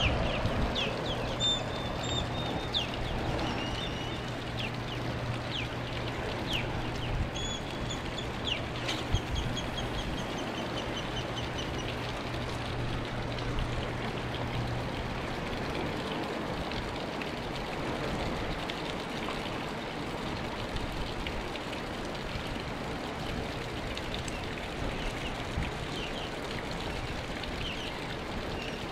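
Steady rushing outdoor noise at the foot of a dam wall, with short high bird calls repeated through roughly the first ten seconds. A low steady hum underneath stops about halfway through.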